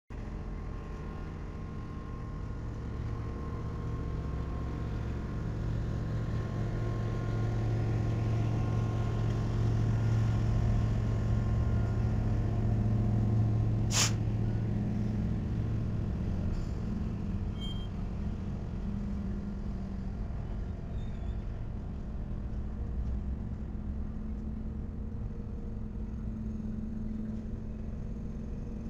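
Diesel freight locomotives running at a rail yard: a steady low engine drone that swells to its loudest about halfway through and then eases off. One sharp click comes near the middle.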